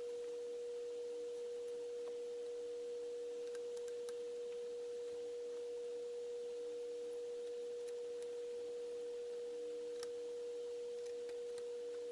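A steady pure tone that holds one pitch without a break, with a fainter lower tone beneath it and a few faint clicks.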